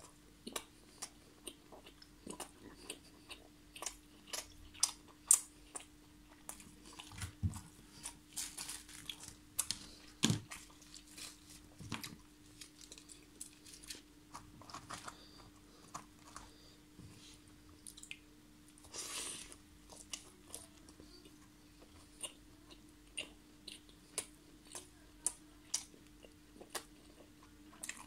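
Close-miked chewing of tandoori chicken, seekh kebab and naan: wet mouth clicks and smacks, several a second, over a faint steady hum.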